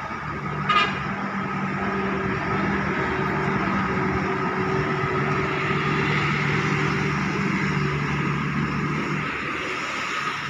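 Road traffic with a steady engine hum from passing vehicles, and a short horn toot about a second in.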